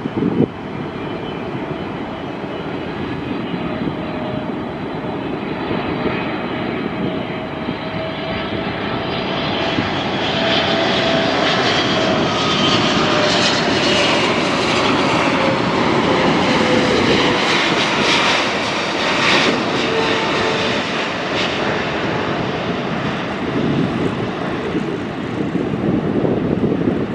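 Jet engines of a wide-body twin-engine airliner on landing approach: a steady rumbling roar with faint, slowly falling whine tones. It swells louder and hisses more about ten seconds in as the plane draws near, then eases a little. A brief knock comes right at the start.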